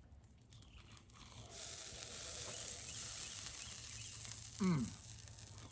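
A steady hiss sets in about a second and a half in and lasts about three seconds. Near the end a man gives a short, falling 'mm' while eating a sandwich.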